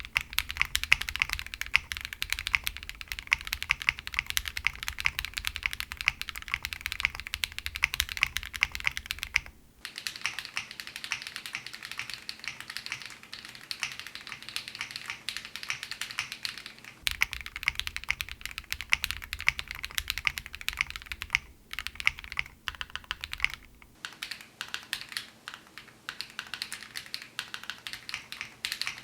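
Continuous fast typing on a jris65 gasket-mounted 65% mechanical keyboard, foamless, with KTT Rose linear switches on an FR4 plate. Dense rapid keystroke clicks, broken briefly at three points where the takes are spliced together.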